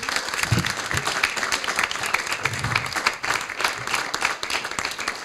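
Audience applauding: many hands clapping steadily, at the close of a talk.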